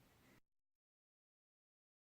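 Near silence: faint room hiss that cuts off to complete silence about half a second in.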